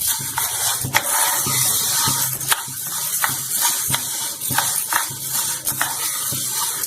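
Dry horse gram grains rattling and scraping in a hot pan as they are stirred, with irregular clicks over a steady hiss.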